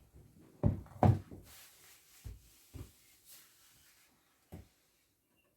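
A series of irregular dull knocks and bumps, about six in four seconds, the loudest about a second in, then quiet.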